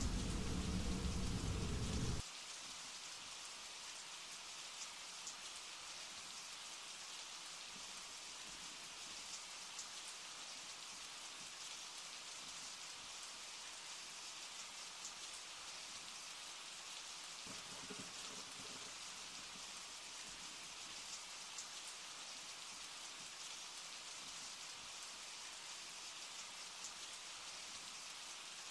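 Steady rain: an even hiss with light scattered drop patter. A louder low rumble fills the first two seconds and cuts off suddenly.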